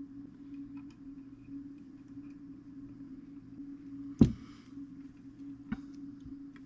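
Small clicks and knocks from tools and metal parts being handled on a clock movement, with one sharp click about four seconds in and a smaller one a second and a half later, over a steady low hum.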